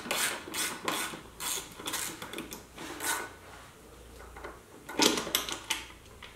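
Short scraping strokes of metal on metal, about three a second, as the bolt of a Harley-Davidson's chrome air cleaner cover is backed out, then a brief clatter about five seconds in as the cover comes away.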